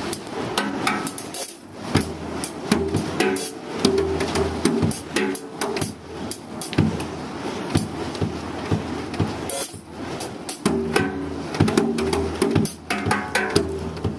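Drum kit played live: a busy stream of snare and cymbal hits with pitched lower notes sounding underneath.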